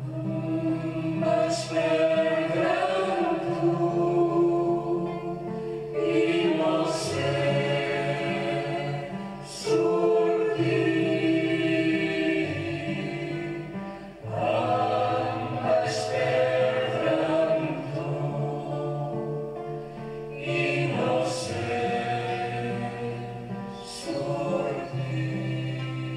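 Music: a choir singing in long held phrases, with breaks between phrases every few seconds.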